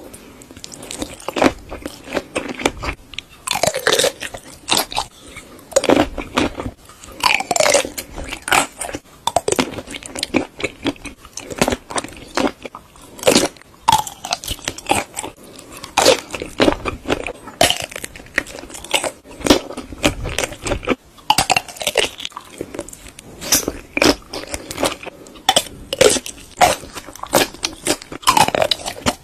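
Sausages being bitten and chewed: repeated crunchy bites and chewing, with many irregular sharp clicks and crackles throughout.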